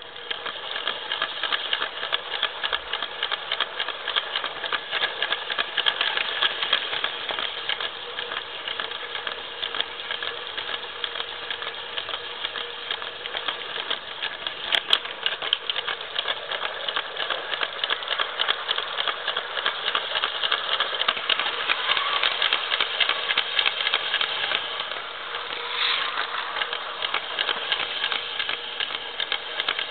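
Small electric motor of a Lego train running with a steady whine, the plastic locomotive rattling and clicking rapidly as it runs over the track, heard close up from on board.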